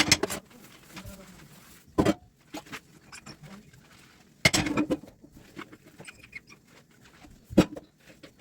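Dishes knocking and clinking during hand dishwashing, in four separate clatters a couple of seconds apart, the one around the middle the longest.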